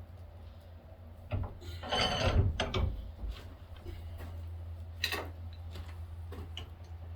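Steel scraping and knocking as a hot bar is clamped in a blacksmith's vise: a knock, then a loud scraping rub lasting about a second, and another short scrape about five seconds in.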